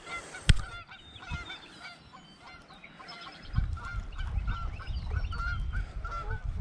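Geese honking repeatedly, several short calls a second. A single sharp click sounds about half a second in, and a low rumble sets in about three and a half seconds in.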